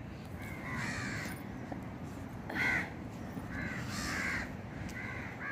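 Crows cawing repeatedly, about five calls, the loudest a little under three seconds in.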